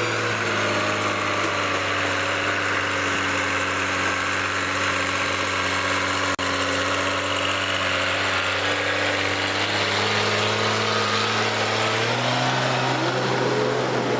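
Heavy vehicle engine running steadily, its note rising about twelve seconds in as it picks up revs.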